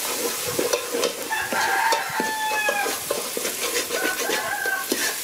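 A metal ladle scrapes and clinks around a large aluminium pot as Khmer curry paste sizzles and fries. A rooster crows once in the background, a long, slightly falling call about one to three seconds in, and a shorter call follows about four seconds in.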